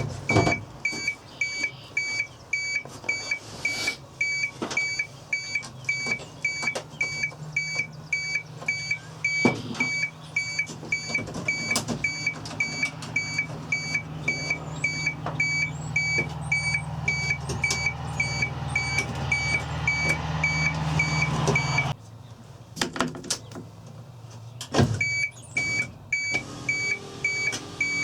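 A vehicle's electronic warning chime beeping rapidly and evenly, about three beeps a second, stopping for a few seconds near the end and then starting again. Underneath, a low motor hum builds up through the middle and cuts off when the beeping stops, with a few sharp clicks.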